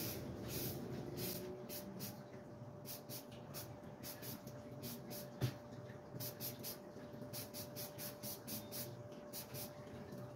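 Aerosol spray paint can sprayed in many short hissing bursts, sometimes a few a second, laying a coat of green paint on a helmet shell. One sharp knock sounds about halfway through.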